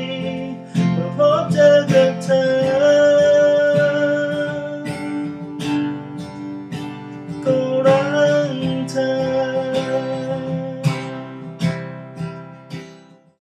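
Acoustic guitar strummed in a steady rhythm under a man singing long held notes, fading out near the end.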